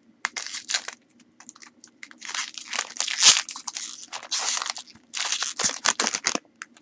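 Trading cards and their pack being handled: irregular bursts of paper and foil rustling, the loudest about three seconds in.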